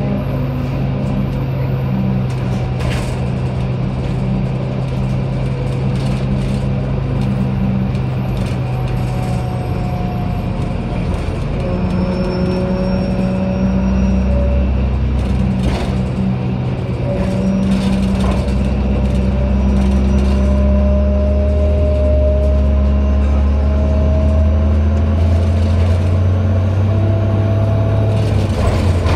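Cummins ISB diesel of a 2007 Orion VII hybrid bus idling at a standstill: a steady hum with faint whining tones over it. About 14 s in, a deeper drone joins and the sound grows slightly louder.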